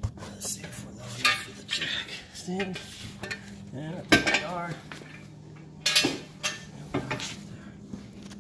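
Metal hand tools clinking and clanking against metal in a string of sharp knocks, the loudest about a second, four seconds and six seconds in.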